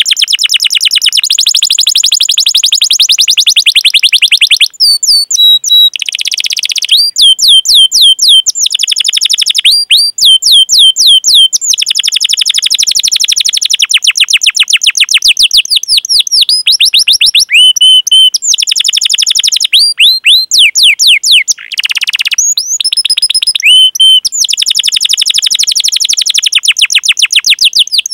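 Domestic canary singing: long, very rapid rolling trills of many tiny repeated notes, broken several times by short runs of separate, swooping 'cuit cuit' chirps.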